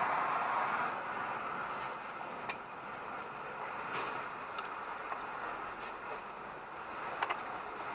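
Steady road and engine noise of a moving car, recorded by a dashcam inside the cabin, with a few faint sharp clicks, two close together near the end.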